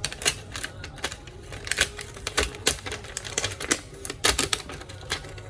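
Irregular sharp clicks and taps, several a second, of tools working on a laptop's plastic and metal parts as a plastic layer is pried off the metal plate.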